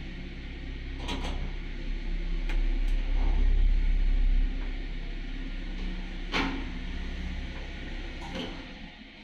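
Zremb residential elevator travelling in its shaft, heard from on top of the car: a steady low motor and rope rumble with several sharp clicks and one louder clack as the car moves past landing doors. Near the end the rumble dies down as the car slows and stops at a floor.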